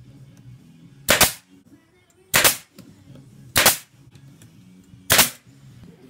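Pneumatic nail gun firing four times, roughly a second or so apart, each shot a sharp crack driving a nail into pine boards to fasten the box.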